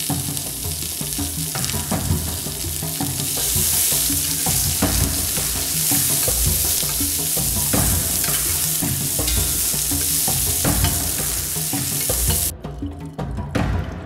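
Chopped vegetables and chicken sizzling as they fry in olive oil in a pot, over background music with a low, stepping bass line. The sizzling stops suddenly near the end, leaving only the music.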